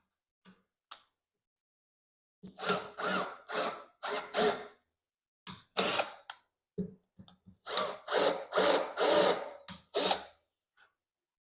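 Power drill run in a string of short bursts while boring partway into wood, about a dozen pulses starting a couple of seconds in.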